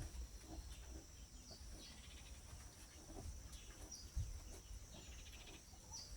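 Faint bird chirps, short high notes that drop in pitch, spaced a second or two apart, over a steady high-pitched tone and a low rumble.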